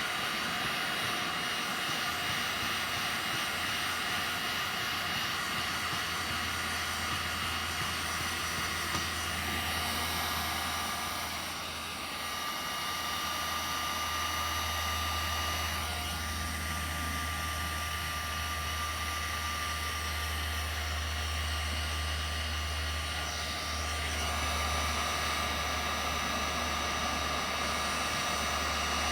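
Electric heat gun running steadily, its fan blowing with a whoosh and a thin motor whine. It is heating the scratched plastic hull to melt the scratches smooth.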